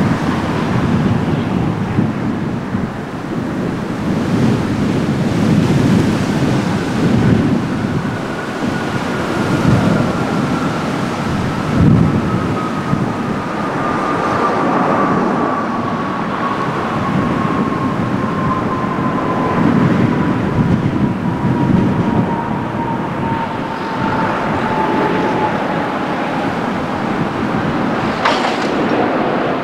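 Airbus A350-900 landing, with the continuous roar of its Rolls-Royce Trent XWB turbofans and an engine whine that falls slowly in pitch as it passes. A single sharp click near the end.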